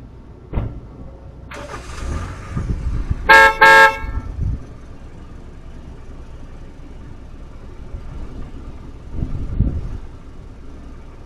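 Car horn honked twice in quick succession: two short, loud toots about three seconds in. Just before them comes a burst of noise, and a single thump is heard near the start.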